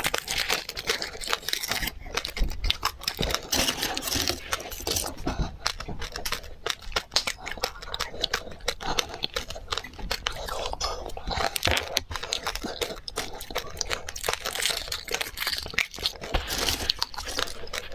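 Close-miked crunching and chewing of hard sesame-seed candy, mixed with foil wrappers crinkling and tearing as they are peeled off.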